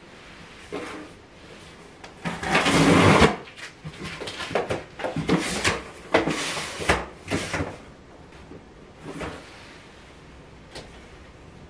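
Rummaging through a cardboard moving box: a loud scrape of cardboard about two seconds in, followed by a run of knocks and rustles as things inside are shifted, then a few scattered taps.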